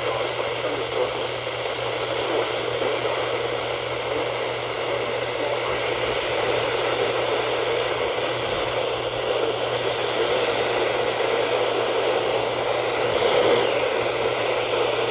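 Steady radio static hiss from a narrowband FM weather-radio receiver picking up a weak NOAA Weather Radio signal between broadcasts, with a low steady hum underneath.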